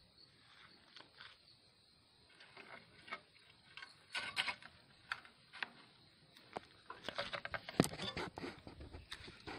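Rustling with scattered clicks and taps from movement through grass, growing busier halfway through, with one sharp knock about two seconds before the end.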